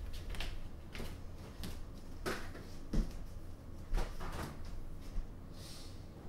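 Footsteps and light knocks across a kitchen floor, then a refrigerator door pulled open near the end with a short rush of noise.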